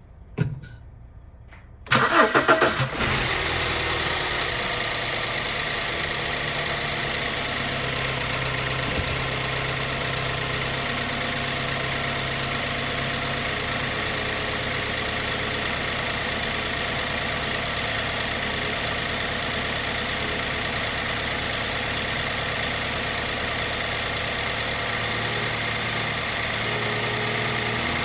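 BMW E90 318i four-cylinder petrol engine cranking and catching about two seconds in, flaring up briefly, then settling into a steady idle. This is the first start after a fuel injector was replaced and the fuel pressure bled off.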